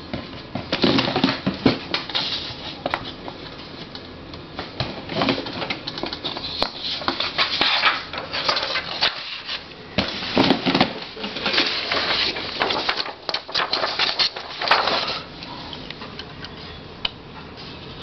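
Irregular clicks, clatter and rustling of a 1949 Empire Aristocrat portable typewriter being handled, its levers and metal parts moved by hand, in uneven bursts with quieter gaps.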